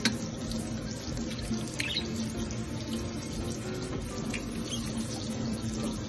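Kitchen tap running a thin stream of water into a stainless steel sink, a steady splashing hiss.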